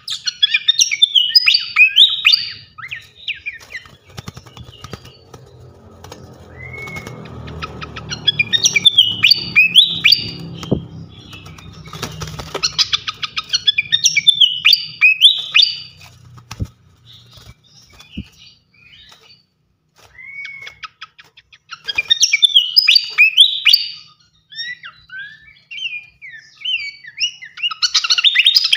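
A small songbird singing in rapid bursts of chirps, trills and twitters, with short pauses between the phrases. A low rumbling noise runs underneath through the first half.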